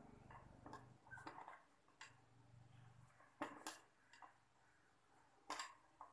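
Faint, scattered metallic clicks and clinks of a screwdriver working on the metal body of an impact wrench. The sharpest clinks come a little after the middle and again near the end.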